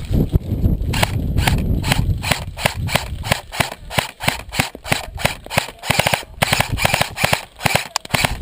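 Airsoft guns firing a rapid, irregular run of sharp shots, several a second, starting about a second in. Wind rumbles on the microphone at the start.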